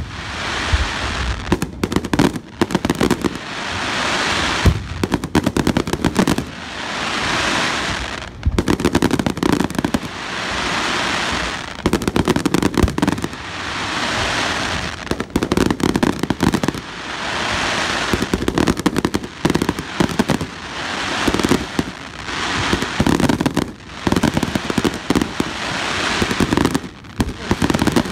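Aerial fireworks display: shells bursting in rapid runs of sharp bangs, alternating every couple of seconds with swells of steady hiss.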